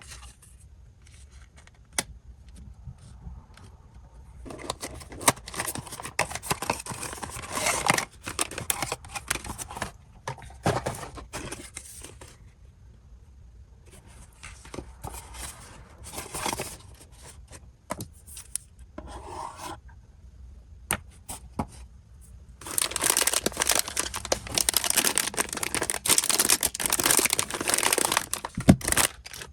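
Blind-box packaging being torn open and handled: ripping and rustling of wrapping in three longer spells, with sharp clicks and taps in between.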